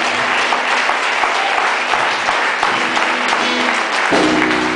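Congregation applauding, a dense, steady patter of many hands clapping. Near the end, music comes in with sustained low chords under the applause.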